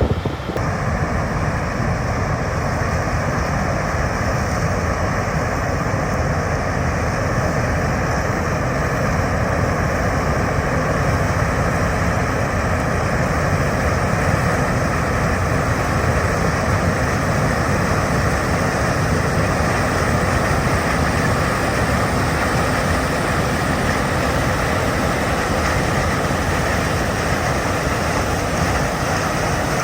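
John Deere combine harvester running steadily, a continuous engine and machine drone with no change in speed.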